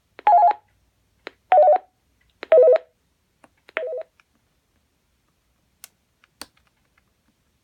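AT&T 945 desk phone's electronic ringer playing short ringtone previews: four brief warbling bursts that trill rapidly between two pitches, each set off by a button click, the pitch stepping lower from one to the next. A couple of faint clicks from the phone's buttons follow near the end.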